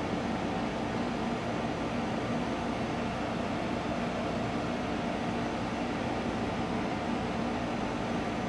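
A steady low mechanical hum with hiss, unchanging throughout.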